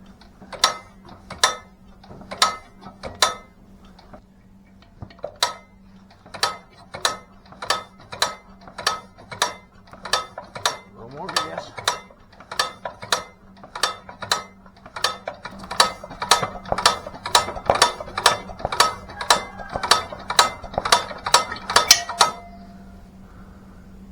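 International Harvester LB engine being cranked over by hand, with a sharp click on every turn, about two and a half a second. After a short pause near the start the cranking picks up, gets faster and louder, then stops suddenly near the end.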